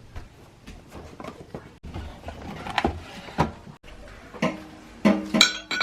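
Kitchen handling sounds: a string of knocks and clatters, ending in a loud clink that rings on briefly.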